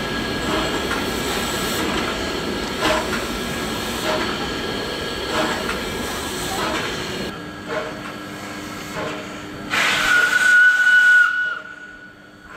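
Hr1 steam locomotive standing with steam hissing steadily and a soft regular beat about once a second. About ten seconds in its steam whistle sounds one steady note for about a second and a half.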